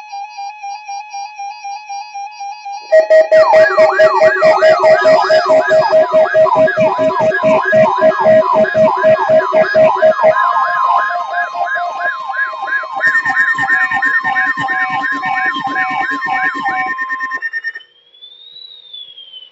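Several electronic siren and alarm tones layered together. The first three seconds hold a quieter beeping tone pulsing about three times a second. Then a loud mix sets in: repeated yelping sweeps about three a second, pulsing lower tones and steady high tones. It changes about ten and thirteen seconds in and cuts off near the end, leaving a single faint rising-then-falling glide.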